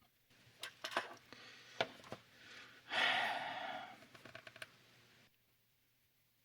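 Small plastic kit parts being handled on a bench: a run of light clicks and knocks with rustling, and a louder scraping rustle about three seconds in, then quiet.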